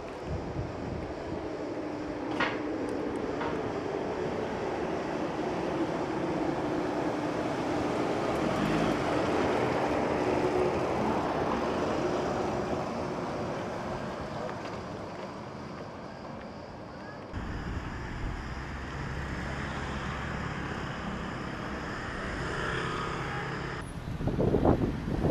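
An engine passing by, its steady hum swelling over about ten seconds and then fading, followed after a cut by outdoor traffic noise.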